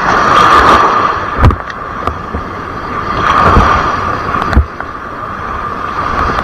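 Surf washing on the shore in slow surges, with wind buffeting the microphone in a few low thuds.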